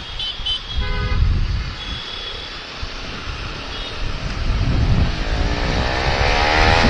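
A few short vehicle horn toots in the first second of slow traffic. From about halfway, a Bajaj Pulsar NS200's single-cylinder engine rises in pitch and grows louder as the motorcycle accelerates.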